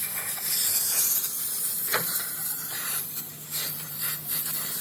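A rushing, uneven hiss with one sharp click about two seconds in, over a faint steady low hum.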